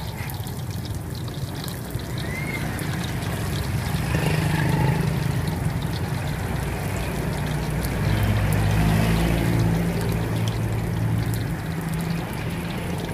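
Steady sizzle and hiss of batter fritters deep-frying in a pan of oil, over the low hum of an engine that grows louder about eight seconds in.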